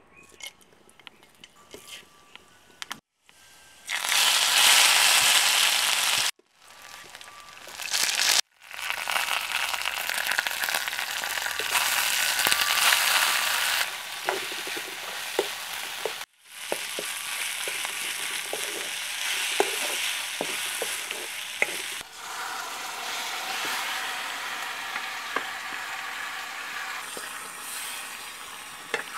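Spices, tomatoes, curry leaves and then chicken wings frying in hot coconut oil in a metal pot: a loud sizzle that starts about four seconds in after a few small clicks, cut off by several short silent breaks. Through the second half the scrape and clack of a spoon stirring against the pot sits over the sizzle.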